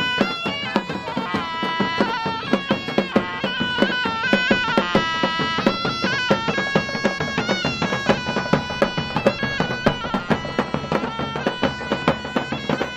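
Background music: a melody of held notes over a steady percussion beat.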